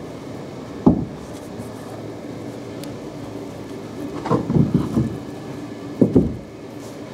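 Dull wooden knocks and thumps as boards are handled and fitted overhead: one sharp knock about a second in, a cluster a little past the middle, and another near the end, over a steady low hum.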